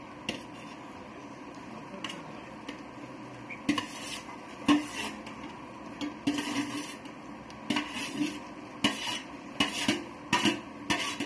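Stainless steel bowl and pan clinking and scraping as cooked rice is tipped and scraped out of one into the other: a few scattered clicks at first, then irregular clinks and scrapes coming thick and fast from about four seconds in.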